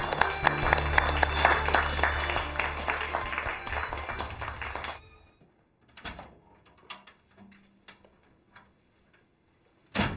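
A small group applauding over background music with a steady low bass; both fade out about five seconds in. After that come a few faint knocks and steps, and a single sharp knock near the end.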